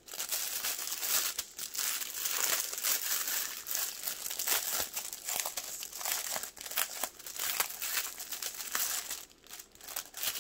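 Small plastic bags of diamond painting drills crinkling as they are handled and sorted, a dense continuous crackle with a short lull near the end.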